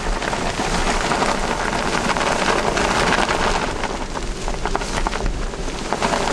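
Strong hurricane wind and driving rain, a steady rush of noise.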